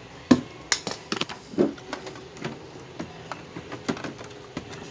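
Irregular plastic clicks and taps as hands handle parts inside an open Epson L3110 printer near the print-head carriage. The sharpest click comes about a third of a second in, and a quick run of clicks follows around a second in.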